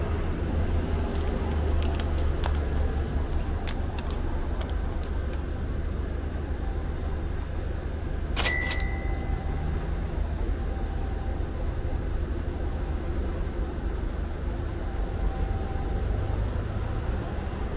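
A steady low rumble of background noise. Over it, in the first few seconds, come faint crackles of a folded paper fortune slip being opened. About eight seconds in there is one sharp click with a brief ringing tone.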